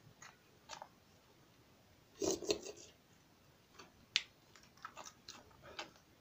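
A Pyrenean Mastiff puppy being weaned, licking and smacking at a feeding spoon: a scatter of small wet mouth clicks, with a louder burst about two seconds in and a single sharp click just after four seconds.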